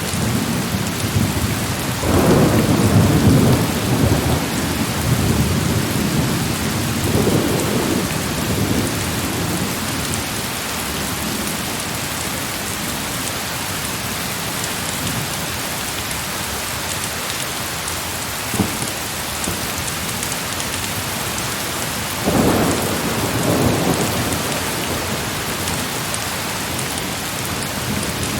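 Heavy rain falling steadily, with low rolling thunder rumbling up about two seconds in, again a few seconds later, and once more near the end. A single sharp click partway through.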